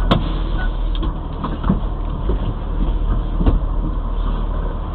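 Fire engine's diesel engine idling steadily, a low rumble heard inside the cab, with a sharp click right at the start and a few faint knocks.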